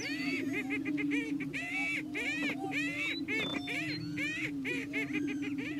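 Greater prairie chickens displaying on a lek: several males booming in a steady, overlapping low drone, with many short, high cackles and whoops over it, several a second. It is the males' courtship display, given with their orange neck sacs inflated.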